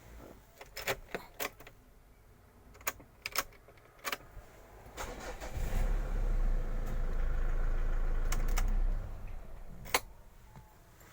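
Keys jangling and clicking several times, then about five seconds in a Mitsubishi car engine starts and runs for a few seconds before falling away, with one more sharp click near the end: the newly cut key starting the car.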